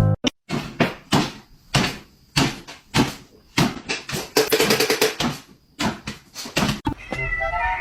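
An uneven series of sharp knocks and taps, with a quick rattle of clicks a little past the middle.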